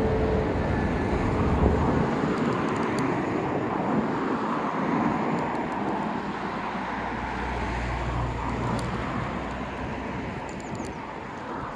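Road traffic going by: a steady wash of street noise, with a low rumble that swells and fades about seven to nine seconds in as a vehicle passes.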